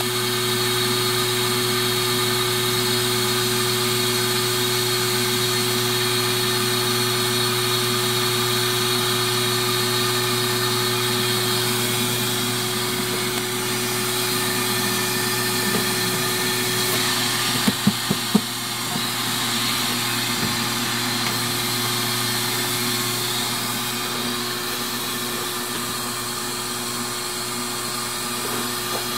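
The vacuum motor of a vacuum seeder runs steadily, with a constant high hum. A little past halfway there is a quick cluster of a few sharp knocks.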